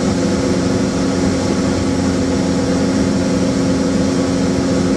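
Small plane's engine and propeller droning steadily in flight, heard from inside the cockpit.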